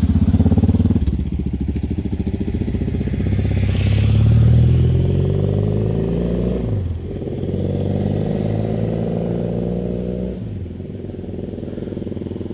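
A motor vehicle engine running, its pitch climbing and then falling away sharply about seven seconds in, climbing again and dropping off near ten seconds, then running on quieter.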